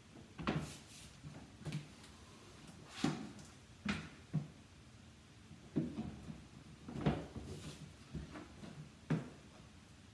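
Flat magnetic guide tiles being set against a magnetically receptive painted wall and pressed and shifted into place by hand: a series of irregular soft knocks and thuds.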